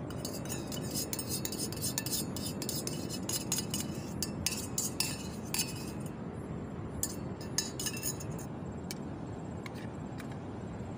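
Metal spoon clinking and scraping against a small metal cup as beaten egg is scraped out of it into a cooking pot: quick, irregular clinks that thin out after about eight seconds.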